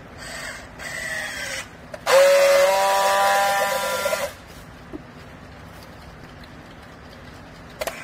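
Battery-powered handheld strapping tool tensioning and sealing a plastic strap around a compressed clothing bale. Two short motor whirs come first, the second falling in pitch, then a loud steady whine about two seconds in that lasts about two seconds and cuts off suddenly.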